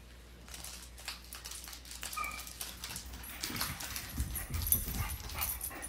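Crinkling and rustling of a foil Pokémon booster pack being handled and torn open, in irregular crackles that grow louder through the second half. A brief high whine sounds once about two seconds in.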